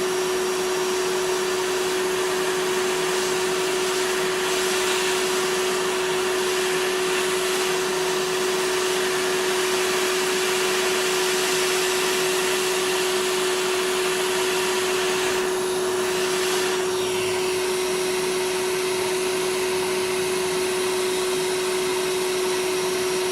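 Hot-air rework station blowing steadily, a rushing hiss with a constant fan hum, as it heats an HDMI port to reflow its solder onto a game console's circuit board. The hiss briefly thins about two-thirds of the way through.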